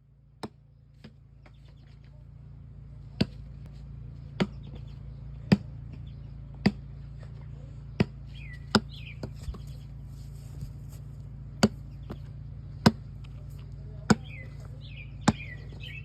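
A ball pounding against a hard surface, one sharp thud about every 1.2 seconds, over a steady low hum. Faint bird chirps come in about halfway through and again near the end.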